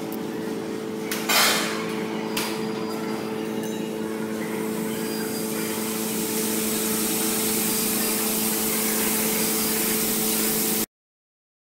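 Steady machine hum with several pitches, broken by two short hisses in the first few seconds. From about four seconds in, a continuous hiss grows as white test smoke is released into the plume over the burning fuel trays. All sound cuts off abruptly near the end.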